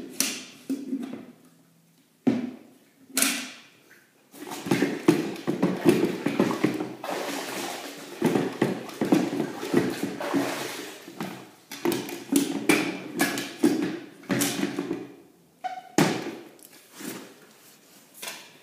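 Water sloshing and splashing in irregular strokes, with a few knocks: a sponge being rinsed in a bucket of clean water.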